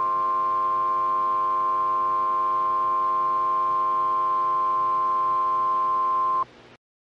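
NOAA Weather Radio warning alarm tone: a single steady tone near 1 kHz, held for several seconds and cutting off suddenly about six and a half seconds in. It signals that a warning, here a dust storm warning, is about to be read.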